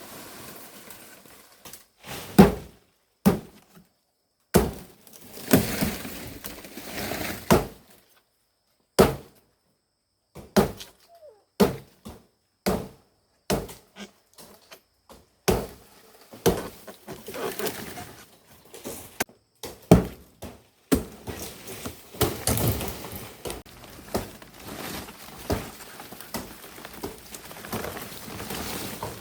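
Irregular chopping blows of a blade cutting into plant stalks, some followed by the rustle and crackle of leaves being handled, broken by several short gaps of silence.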